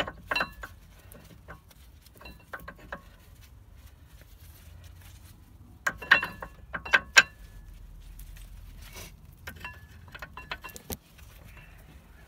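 Sharp metallic clinks and scrapes of brake pads being fitted into a Volvo 480 front brake caliper, coming in small clusters with the loudest clinks about six to seven seconds in.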